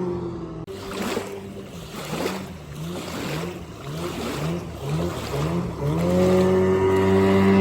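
Outboard boat motor running at speed: its steady note drops, then for several seconds the engine pitch jumps up briefly about twice a second amid rushes of splashing water noise, and about six seconds in it climbs back to a steady high pitch under throttle.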